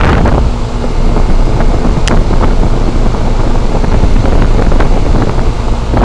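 Outdoor unit of a 2004 Goodman 10 SEER 3.5-ton heat pump running in heating mode with frost building on its lines: a steady low rumble, with the fan's air buffeting the microphone. A single sharp click about two seconds in.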